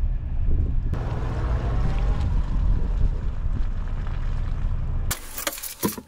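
Car driving slowly over a snow-covered parking lot, a steady low rumble of engine and tyres. About five seconds in, the rumble cuts off suddenly and a few sharp clicks follow.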